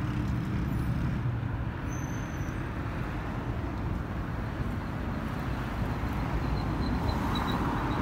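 Steady city traffic noise: a constant low rumble of car and bus engines and tyres on the road, with no single vehicle standing out.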